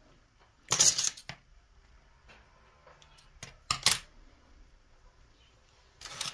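Small hard objects clicking and clattering as they are handled on a work table, in short bursts about a second in, near four seconds in, and again at the end.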